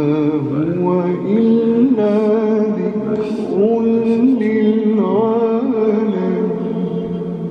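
A man's voice chanting in long, wavering, ornamented notes in the style of Quran recitation, over a steady held drone tone. The voice fades near the end.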